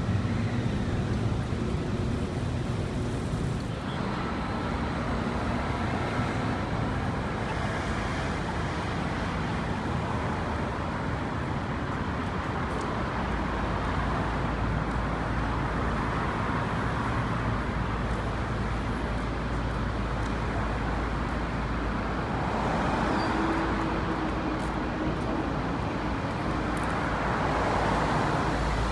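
City street traffic: a steady rumble of cars and buses, swelling twice in the second half as vehicles pass close by.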